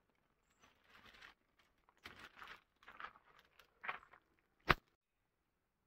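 Irregular crunching steps on gritty, gravelly ground mixed with rustling of a dry stick bundle, then one sharp knock about three-quarters of the way in.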